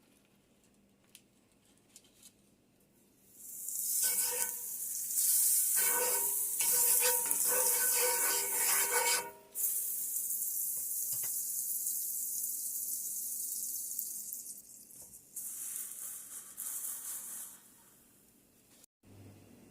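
Bread sizzling as it toasts in a hot pan, starting a few seconds in and dying away near the end, with a pitched squeaky rubbing over the sizzle for several seconds in the first half.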